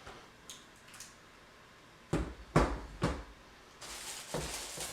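Hard plastic parts of a vacuum cleaner being handled during unboxing: three knocks about half a second apart, then a rustling noise near the end.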